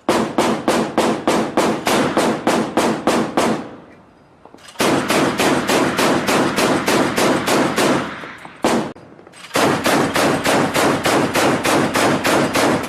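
Mk 38 25mm naval gun, an M242 Bushmaster chain gun, firing on automatic in three long bursts of about four rounds a second, with a single shot between the second and third bursts.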